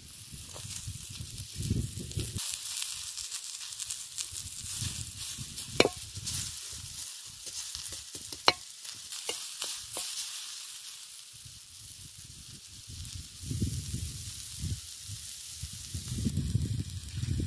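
Sliced onion roasting on a flat iron pan over a wood fire, sizzling steadily while a metal spatula stirs and scrapes it, with two sharp clinks of the spatula on the pan about 6 and 8.5 seconds in. Low rumbles come and go near the start and again in the last few seconds.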